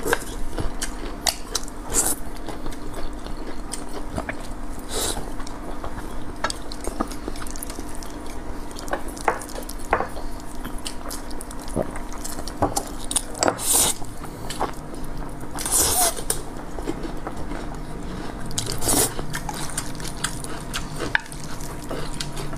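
Close-up eating sounds: zhajiangmian noodles being slurped and chewed, with chopsticks clicking against the skillet and dishes. There are a handful of louder slurps spread through, over a low steady hum.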